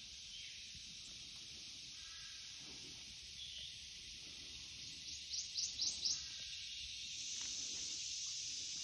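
Steady high-pitched drone of an insect chorus, with a bird calling now and then; a burst of four quick bright notes about five to six seconds in is the loudest sound.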